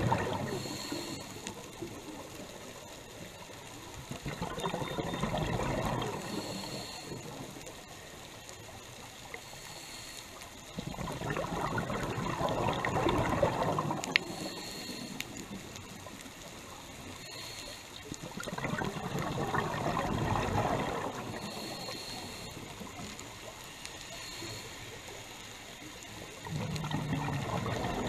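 Scuba regulator exhaust bubbles from a diver's breathing: a gurgling rush of bubbles with each exhalation, lasting two to three seconds and coming about every seven seconds, four times.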